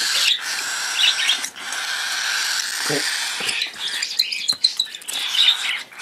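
Cockatiel chicks begging to be hand-fed: a steady raspy hissing of calls with many short high chirps over it.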